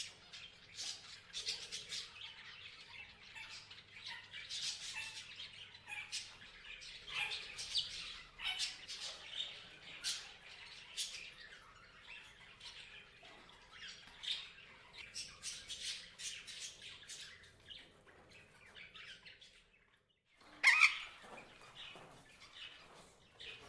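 Parrots chirping and squawking in quick, overlapping short calls. The calls drop away briefly about twenty seconds in, then one loud squawk follows.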